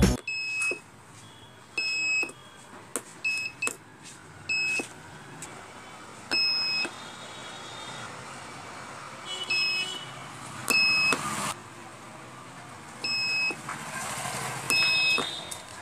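Buzzer of a homemade voting-machine model sounding short, high beeps, one each time a vote button is pressed. There are about nine beeps at irregular gaps of one to three seconds, with faint clicks from the button presses.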